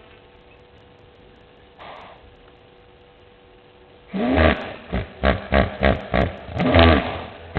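A large wild animal calling loudly: a longer deep call about four seconds in, then a rapid series of short grunting calls, about three a second, with another longer call near the end.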